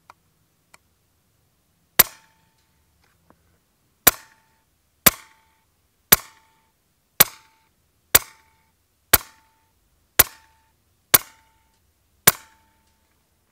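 Ten shots from a Daystate Red Wolf .22 PCP air rifle firing slugs. The first comes about two seconds in and the rest follow about a second apart. Each shot except the first is followed by a brief ringing tone.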